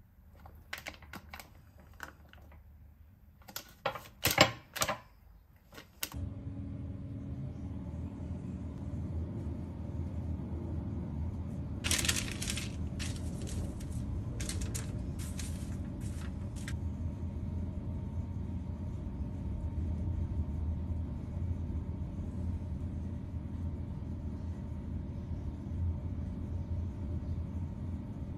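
Silicone spatula scraping and knocking choux dough into a plastic piping bag, in scattered clicks and scrapes. Then a steady low hum sets in, with crinkling of baking paper being pressed flat on a metal baking sheet for several seconds.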